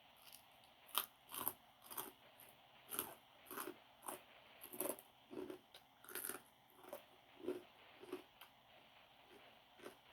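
A person chewing food close to the microphone, with crisp crunching bites coming irregularly every half second to a second.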